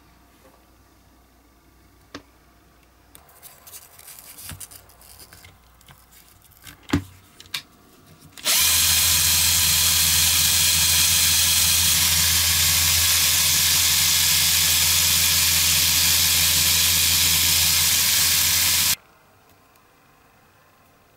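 Cordless drill running at a steady speed for about ten seconds, spinning a thin metal rod held in its chuck; it starts and stops abruptly. Before it, light clicks and handling of small parts, with one sharp click.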